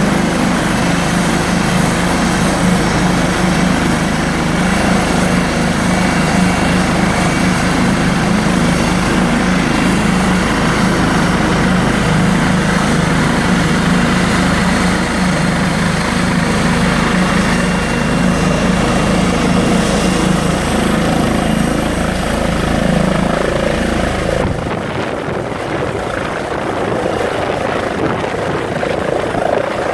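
Eurocopter EC135 air ambulance helicopter running on the helipad, its turbines and rotor making a loud, steady sound. A thin high whine rises in pitch shortly before the deepest rumble drops away, about 25 seconds in, as it lifts into a low hover near the end.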